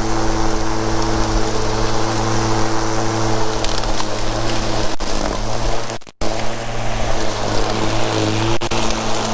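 Milwaukee M18 Fuel cordless mower's brushless motor running in high lift mode, its blade mulching tall weeds: a steady hum over a rushing noise. The sound cuts out for a moment about six seconds in.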